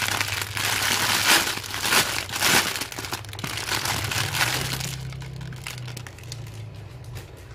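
Clear plastic packaging bag crinkling and crackling as it is handled and opened by hand to pull out a folded shirt. The crinkling is dense for about five seconds, then dies down to softer rustling.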